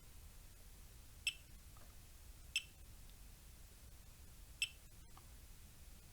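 Three short, high electronic beeps from a digital multimeter, irregularly spaced a second or two apart, as test points are probed on the charger's circuit board.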